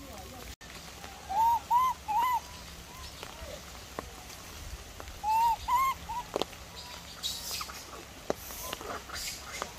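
An animal calling in two phrases of three short hooting notes, each note rising and falling in pitch, with a few faint sharp ticks between them.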